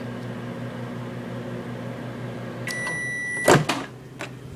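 Microwave oven running with a steady hum, then its single end-of-cycle beep lasting under a second about three quarters through, followed at once by a loud clunk as the hum stops.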